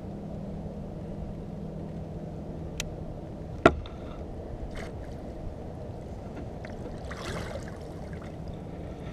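Water and wind noise around a fishing kayak, with a low steady hum that stops at a single sharp knock a little under four seconds in, a few fainter ticks, and a brief hiss about seven seconds in.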